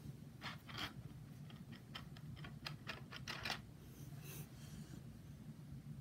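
A quick run of small, sharp clicks and taps from makeup tools and brushes being handled, about a dozen over three seconds, over a low steady hum.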